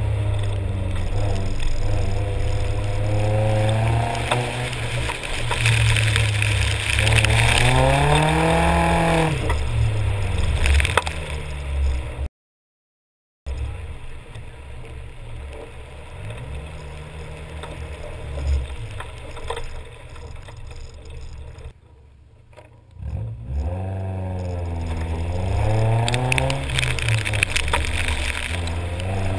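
Nissan 240SX's KA24 four-cylinder engine revving up and down repeatedly as the car is driven hard through an autocross course, with a hiss of wet road under it. The sound cuts out completely for about a second a little before halfway, and near the end the engine note drops low and then climbs again through repeated rises in pitch.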